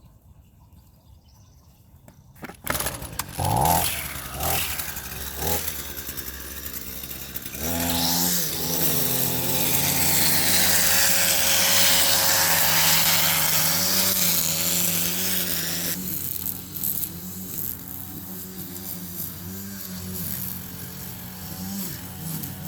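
A few knocks and clatters, then the Honda HRX217 lawn mower's single-cylinder engine starts about eight seconds in and runs steadily, loudest for the next several seconds and then settling a little lower.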